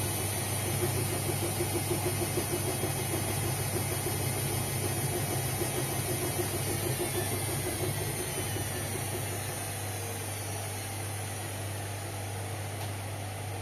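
Indesit washing machines running: a steady low motor hum with a rhythmic pulsing over it, which eases off and grows quieter about eight seconds in.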